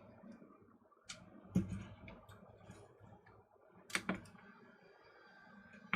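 A few faint, scattered clicks and taps from handling multimeter test probes on the toaster's circuit board while a voltage reading is taken, the sharpest about a second in, a moment later, and about four seconds in.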